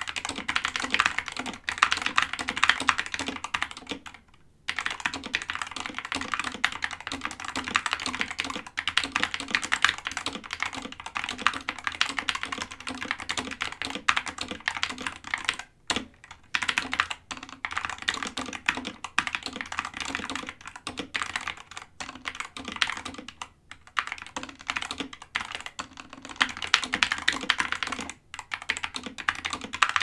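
Fast touch-typing on a Geek GK61 61-key mechanical keyboard with Gateron optical switches: a dense run of keystroke clacks with a few brief pauses. A slight rattle comes from the stabilizers and a hint of spring noise from the switches.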